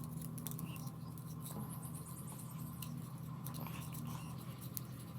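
Homemade drill's 12 V 775 DC motor running steadily, with scattered light clicks and scratches over it.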